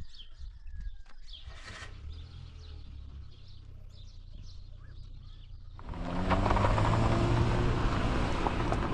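Small birds chirping over a low rumble; about six seconds in, a loud engine comes in and keeps running.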